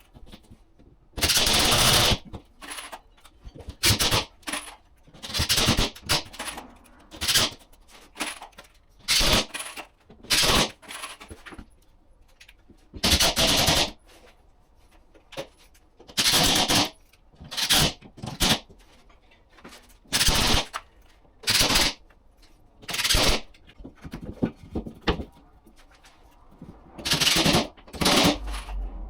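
Cordless impact driver driving screws into timber framing in a series of short rattling bursts, each a second or less, with irregular pauses between them.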